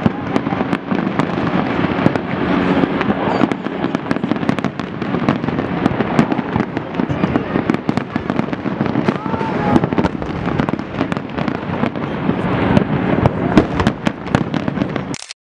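Fireworks display: a dense, rapid run of bangs and crackling shell bursts over a continuous rumbling haze, cutting off abruptly near the end.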